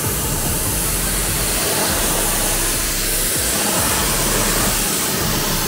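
Water spraying onto a car wheel in a steady, loud hiss.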